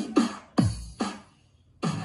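Electronic music with a strong drum beat playing through the restored Technics SU-7700 amplifier and a bookshelf speaker. It cuts out about a second and a half in, then comes back for two beats near the end.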